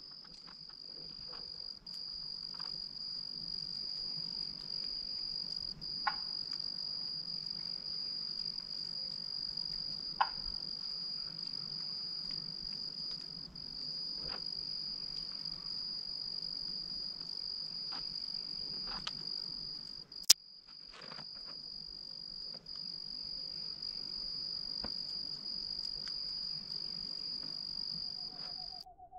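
An insect trilling steadily on one high note, the kind of continuous song a cricket makes, stopping just before the end. A few faint clicks break in, and one sharp click about two-thirds of the way through is the loudest sound.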